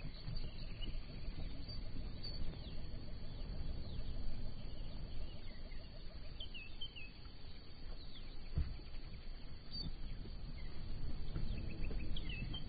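Plains zebras sparring on dry, dusty ground: hooves scuffing and thudding, with one sharper knock about two-thirds of the way through. Small birds chirp a few times in the background.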